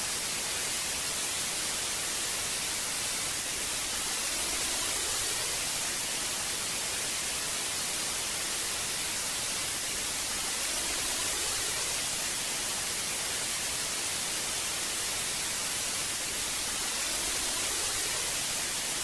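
Analogue television static: a steady, hissing white noise, brightest in the treble, with slow gentle swells.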